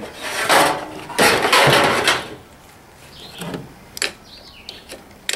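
Pieces of scrap metal scraping and clanking against each other in a pickup bed as one is pulled from the pile: two long, loud scraping rattles in the first two seconds, then a few light knocks.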